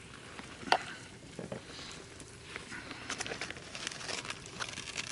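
Campfire crackling with scattered pops and clicks. One sharp pop under a second in is the loudest.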